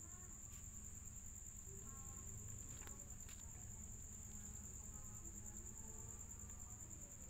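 Faint, steady high-pitched trill of a cricket, with a couple of soft clicks about three seconds in.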